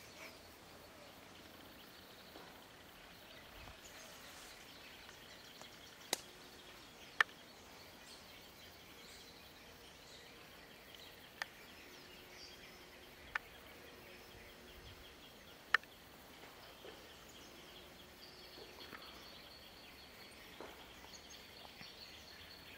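Quiet forest ambience: faint steady high-pitched calls, with five sharp clicks scattered through the middle.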